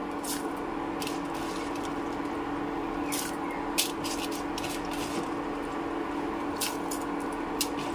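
Steel ladle clicking and scraping against an aluminium pressure-cooker pot as soaked raw rice is spooned into simmering moong dal, a handful of short sharp strokes over a steady hum from the induction hob.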